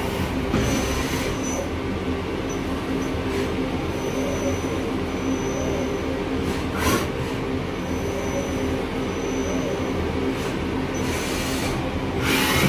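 Chevalier 2040 VMC-L CNC vertical machining center running with a steady hum and a high thin whine that comes and goes, while its spindle head moves down toward the table and back up. Short hissing bursts sound about a second in, about seven seconds in, and near the end.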